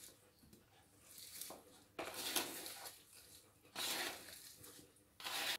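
Hands tossing macerating sliced apples in a plastic mixing bowl: the slices shift and rub against each other and the bowl in three main short bursts, with softer handling between.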